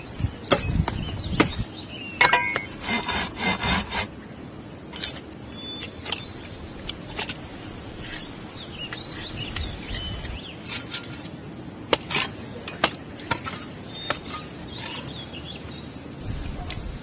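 Kitchen utensil handling: a plastic spatula scraping and tapping as a rice mixture is scooped from a glass bowl and packed into a plastic triangular rice-ball mold on a wooden tray. The first few seconds hold dense scraping strokes and knocks, followed by scattered clicks and taps.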